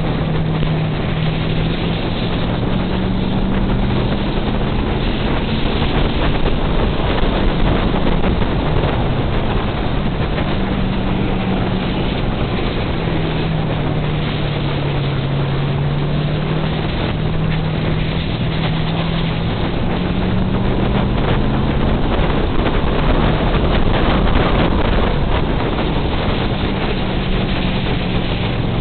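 Race car engine running hard, recorded through a hood-mounted microphone with heavy wind and road noise. Its note rises and falls slowly with the throttle: higher for the first few seconds, dipping about halfway through, rising again near the end.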